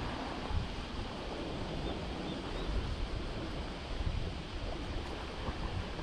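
Wind buffeting the microphone over steady sea noise: an even rushing hiss with an uneven low rumble.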